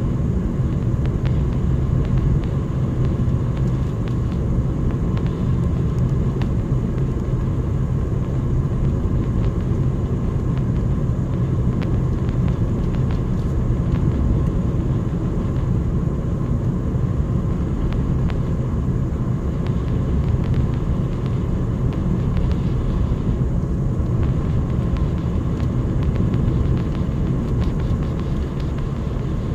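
Steady low rumble of engine and tyre noise heard inside a moving car.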